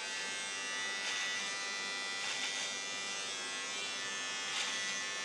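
Remington electric beard trimmer buzzing steadily as it is worked over the beard, with a few brief raspy surges as it cuts through the hair.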